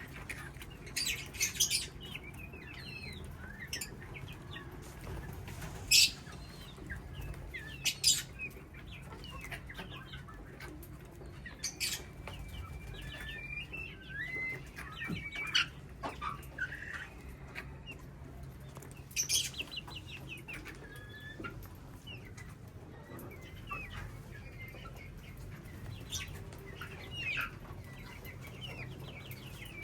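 A colony of caged parrots calling: short, scattered chirps and squawks, with a few sharp, louder calls, over a steady low hum.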